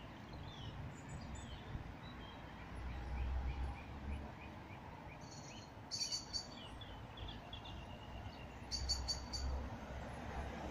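Small birds chirping: thin high chirps throughout, with short runs of sharper, louder calls about six and nine seconds in, over a faint low rumble that swells and fades.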